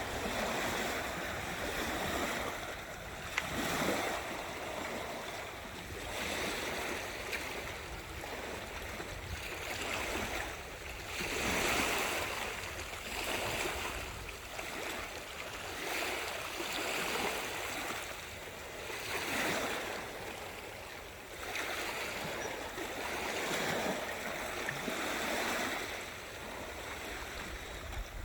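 Sea waves washing on the shore, the surf swelling and fading every couple of seconds.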